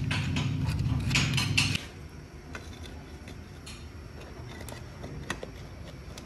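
Light metal clinks and scraping from hand-work on a motorcycle's front sprocket and its cover: a few sharp, separate clicks of metal parts and tools. A steady low hum with scraping runs through the first couple of seconds and stops abruptly.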